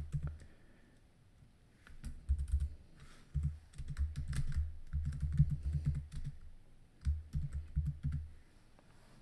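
Typing on a computer keyboard: several quick runs of keystrokes with short pauses between them. The typing starts about two seconds in and stops shortly before the end.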